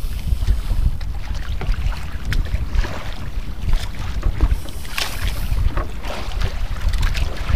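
Wind buffeting the microphone over open sea, with water splashing and lapping against a small outrigger boat's hull; the splashes are loudest about five seconds in.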